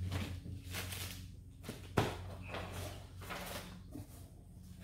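Paper towels and plastic parts packaging rustling as they are handled on a workbench, in several short bursts, with one sharp knock about two seconds in. A steady low hum runs underneath.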